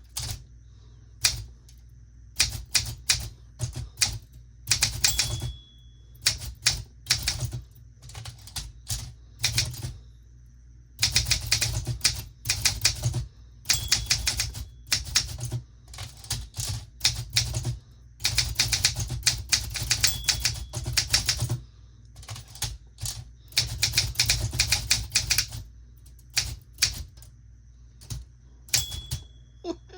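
Typewriter being typed on: runs of rapid key strikes in bursts with short pauses between, and a brief ring after some of the runs.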